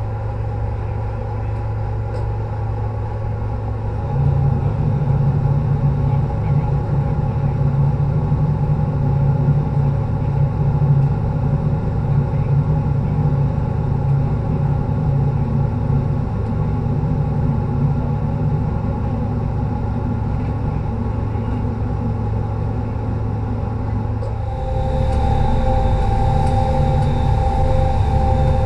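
A party fishing boat's engines running with a steady low drone, getting louder about four seconds in as the boat moves off. Near the end the sound changes to the engines and water noise of the boat underway at sea.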